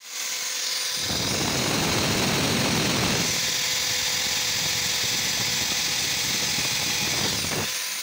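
Electric drill in a drill stand running at full speed, a small bit grinding against a thick-walled stainless steel tube. It starts suddenly with a steady whine and grinds hardest for the first couple of seconds. With no working speed control the drill runs too fast for the bit, which burns instead of cutting the stainless.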